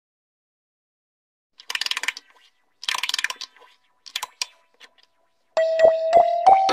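After a second and a half of silence come four short bursts of rapid mechanical clicking, the last one small. About two-thirds of the way through, background music with plucked guitar notes starts.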